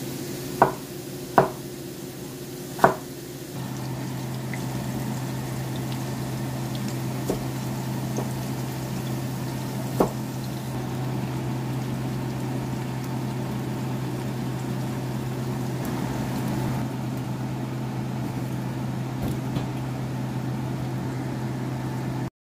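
A knife chopping on a wooden cutting board, three sharp knocks, then sliced hot dogs frying in oil in a wok, a steady sizzle over a low hum that starts about three seconds in.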